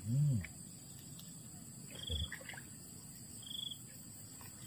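Steady high-pitched drone of crickets and other insects, with two short high trills about two and three and a half seconds in and a dull low thump about two seconds in.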